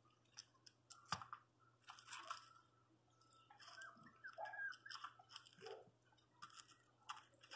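Faint crunching and clicking of a miniature pinscher puppy gnawing on a bone.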